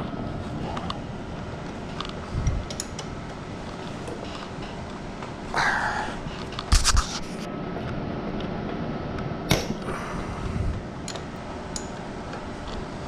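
Hand tools and metal parts clicking and clinking while a small dirt bike is taken apart. There is a brief scraping rattle a little before the middle, then a few sharp clanks, over a steady low hum.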